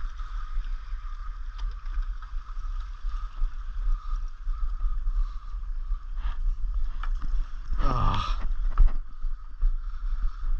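Wind buffeting the microphone over the wash of sea water against the rocks, with a brief louder rush of noise about eight seconds in.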